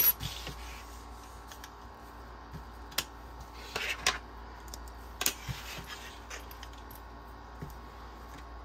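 Hands handling layered canvas pieces and small sewing clips on a tabletop: scattered light clicks and taps, with a brief rustle of fabric about four seconds in, over a faint steady hum.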